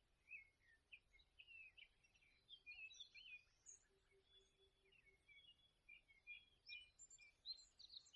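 Faint chorus of small birds chirping, with many short, high calls overlapping.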